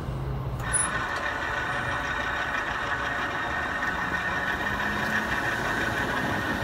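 Diesel locomotive engine running steadily at low power, a low rumble with a steady hiss that comes in sharply just under a second in.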